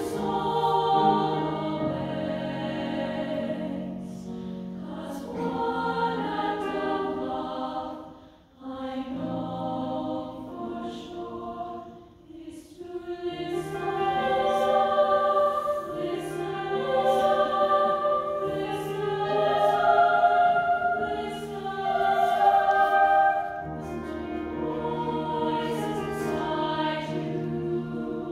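Mixed choir singing sustained, harmonised phrases with sung words, with two brief breaks between phrases partway through.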